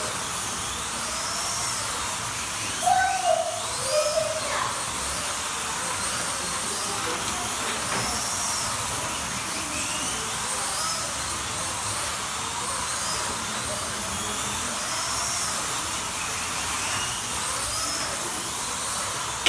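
Slot cars' small electric motors whining as they lap the track, each whine rising and falling in pitch every couple of seconds as the cars accelerate and brake, over a steady noise of cars and track.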